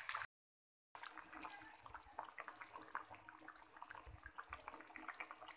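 Fish curry simmering in a metal kadai: a faint, busy crackle of small bubbles popping in the gravy. The sound drops out for a moment near the start.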